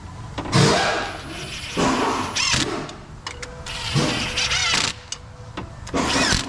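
Cordless driver spinning bolts into a lower intake manifold in about four short bursts, its motor pitch rising and falling as each bolt threads in. The bolts are being run down against the drag of thread locker and have not yet bottomed out.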